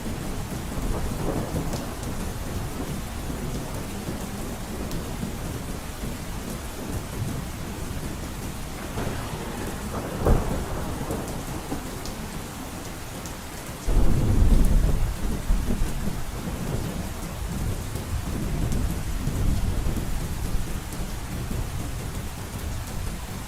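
Heavy rain drumming steadily on a roof during a thunderstorm. A sharp crack of thunder comes about ten seconds in, and a loud low rumble of thunder starts suddenly a little later and fades over several seconds.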